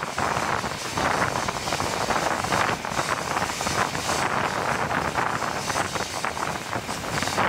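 Train hauled by a D.343 diesel locomotive running at speed, heard from an open coach window: wind rushing over the microphone mixed with the rumble and clatter of the wheels on the track.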